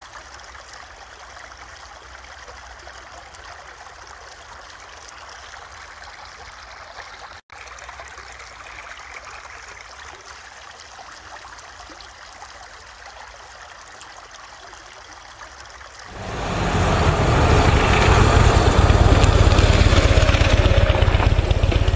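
Roadside traffic noise: a steady hiss that swells about 16 seconds in to a much louder rumbling rush, as of a vehicle close by.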